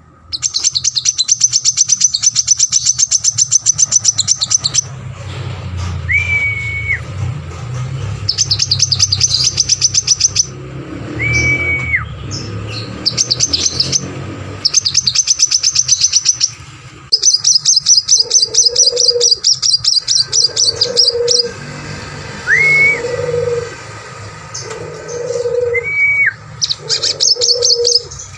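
Caged sunbird singing hard, in repeated bursts of very fast, high, rattling trills a few seconds long. The trills are broken by single clear whistled notes that end in a downward slide. From the middle onward, low soft cooing notes repeat about every second and a half under the song, over a steady low hum.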